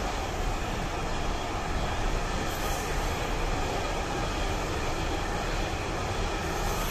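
Container wagons of a long freight train rolling past, with a steady noise of wheels running on the rails.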